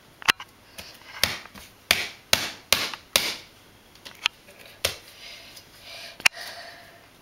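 Chunky jigsaw puzzle pieces knocked, slid and pressed together on a wooden floor by a small child's hands: a run of sharp taps and knocks with a few brief scrapes, busiest in the first half.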